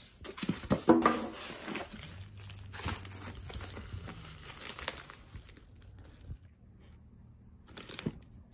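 Plastic packaging crinkling and rustling as it is handled, with a few sharp clicks and a short squeak about a second in. The rustling is loudest over the first five seconds, dies down, and comes back briefly near the end.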